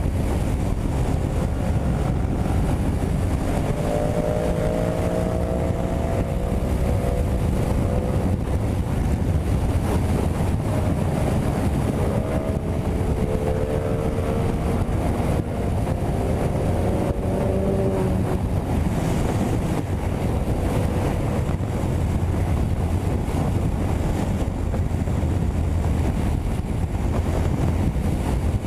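Yamaha MT-07's parallel-twin engine running steadily in sixth gear at highway speed, around 130 km/h, under heavy wind rush on the microphone. The engine note wavers slightly.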